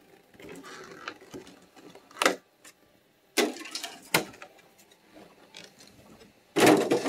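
Packaging of a Pokémon card product being opened and handled: soft rustling, then several sharp clicks, the loudest near the end.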